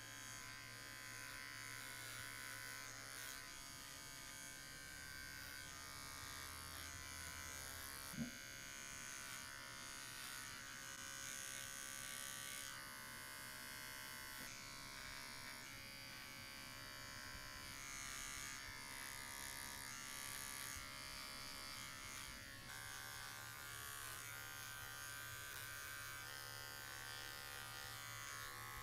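Wahl cordless pet clipper running steadily as it trims the fur between a dog's paw pads, with one brief sharp click about eight seconds in.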